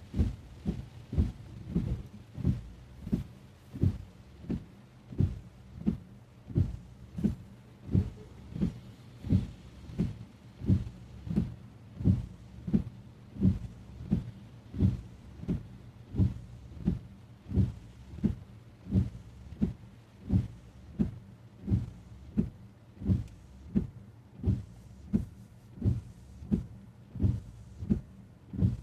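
Windscreen wipers sweeping back and forth on a car in rain, heard from inside the cabin: an even, low thump at each stroke, about every 0.7 seconds.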